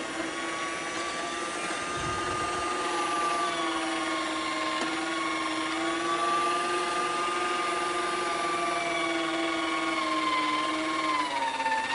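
Waring electric meat grinder's 300-watt motor running at speed with a steady whine, its pitch sagging slightly near the end.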